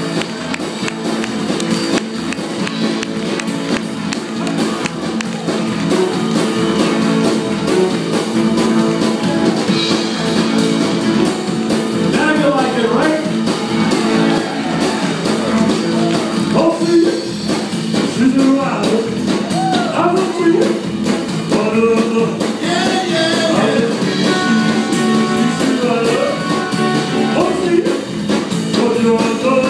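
Live rock-and-roll band playing: electric guitars, bass, drums and keyboard, with a male singer's voice coming in about twelve seconds in.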